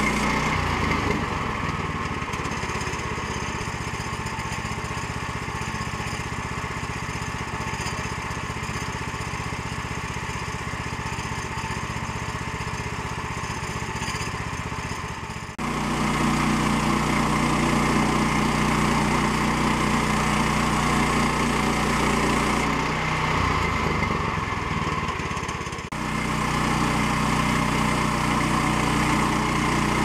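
Woodland Mills HM122 portable bandsaw mill's gasoline engine running steadily. Its level and pitch shift abruptly a few times: down about a second in, back up about halfway, and briefly changing again near three-quarters of the way through.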